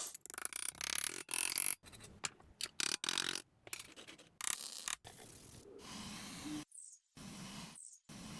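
Scraping and rubbing on the toy cash register's parts, in short choppy bursts with abrupt cuts and a few sharp clicks.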